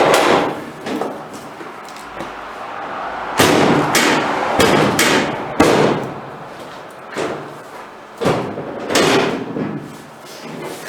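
Steel tailgate of a Jeep J10 pickup being slammed shut and pulled against its latch: a string of about ten metal bangs, bunched in the middle. It is a test of a freshly welded latch tab on the bed.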